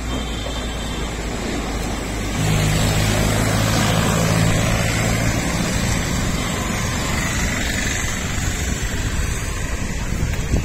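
A motor vehicle's engine running over a steady rushing noise. It gets louder about two seconds in, with a low steady hum for a few seconds.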